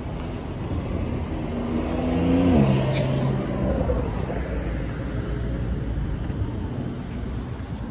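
A motor vehicle passing by: its engine note grows louder for about two and a half seconds, drops in pitch as it goes past, then fades slowly.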